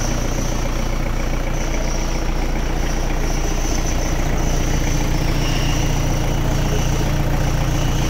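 Iseki 325 farm tractor's 32-horsepower diesel engine running steadily.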